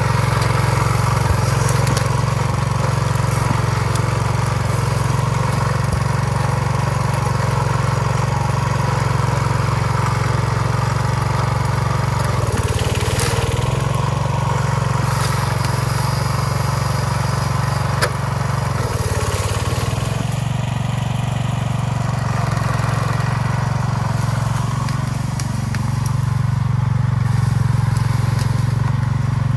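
An old garden tractor's engine runs steadily under load as the tractor pushes into a pile of tree-trunk sections. Its note dips briefly a couple of times.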